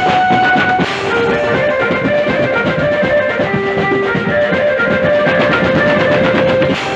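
Music: a melody of held notes on a plucked or keyed string instrument over dense drumming.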